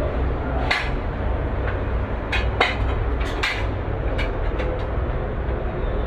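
Steady low rumble of workshop machinery, with a scatter of sharp clicks and knocks, most of them between about one and five seconds in.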